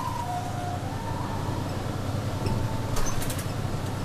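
City bus engine running steadily as it drives, heard from inside the cabin, while an ambulance's two-tone hi-lo siren sounds one last clear low note in the first half second and then trails off faintly into the distance.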